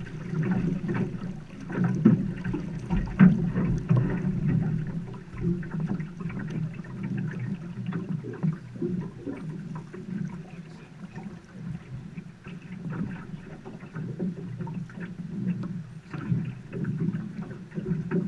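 River water rushing and splashing against the hull and oar of a drifting boat, a muffled, uneven wash with small slaps throughout.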